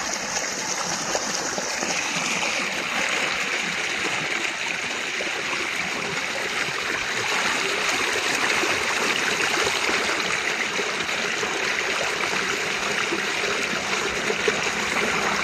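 Muddy rainwater rushing and splashing steadily through a narrow channel cut in an earthen ditch bank, churning white where it pours into the pool below.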